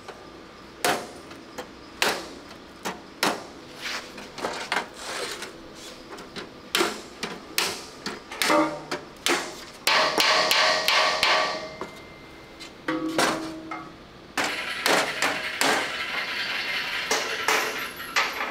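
Hammer striking the rusty steel dashboard panel of a WWII Grant tank, panel beating the bent metal straight on a workbench. Separate ringing blows start about a second in, with quick runs of blows around the middle and a faster stretch of hammering near the end.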